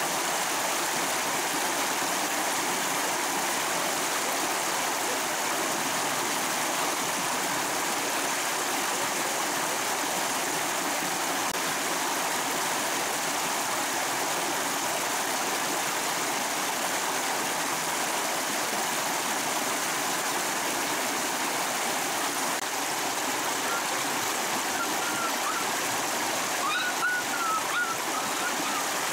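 Small rocky stream rushing and cascading over stones, a steady, unbroken sound of running water. A few faint short chirps come through near the end.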